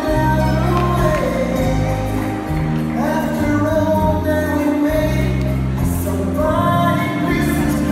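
Slow rumba dance music with a singer's voice over sustained bass notes, playing for a ballroom competition round.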